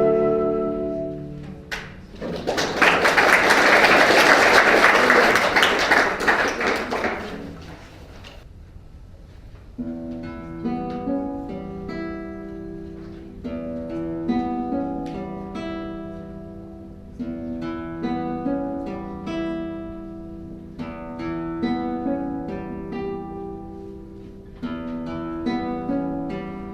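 Audience applause for about five seconds as a held instrumental note dies away. After a short pause, a solo acoustic guitar starts a piece of plucked notes and chords.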